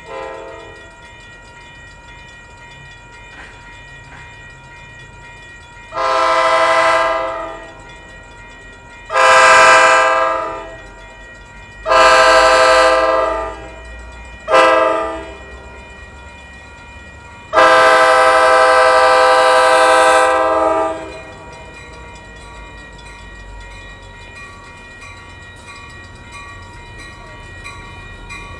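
Approaching locomotive's air horn sounding five blasts: three long, one short and a final longer one, ending in the long-long-short-long grade-crossing signal.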